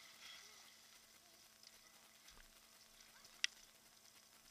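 Faint splashing and trickling water around a boat's stern as swimmers tread water and climb aboard. One sharp knock about three and a half seconds in.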